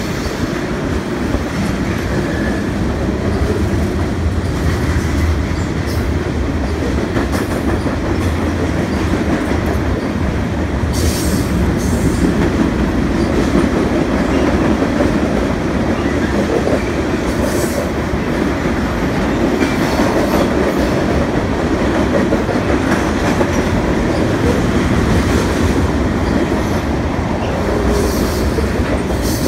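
Freight train cars, mostly tank cars, rolling past: a steady rumble and clatter of steel wheels on the rails, with a few short sharp high-pitched noises from the wheels now and then.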